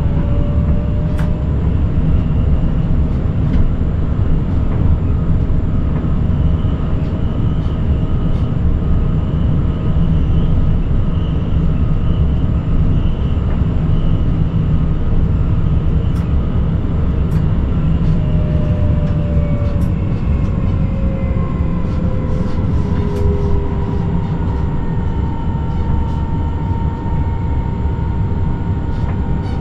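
Forchbahn electric train running on the line, heard from the driver's cab: a steady low rumble of wheels on rails under the whine of the electric drive, whose pitch drifts slowly and falls during the second half. Faint clicks are scattered through it.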